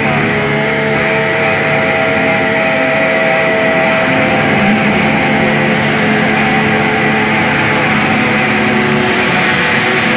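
Noise music: a loud, dense, unbroken wall of distorted drone with several held tones underneath and no beat.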